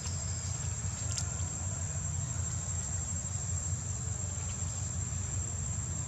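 Steady high-pitched drone of insects, with a constant low rumble underneath.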